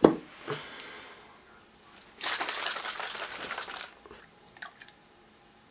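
A drink can being handled in the hands: a sharp knock at the start, a rustling, crinkling noise lasting under two seconds a couple of seconds in, then a few faint clicks.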